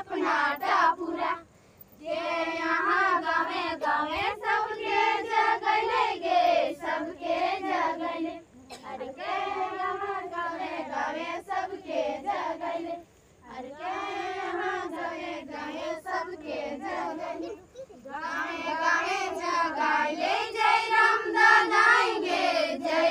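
A group of girls singing a Karam folk song in unison without instruments, in phrases of several seconds with short breaks between them.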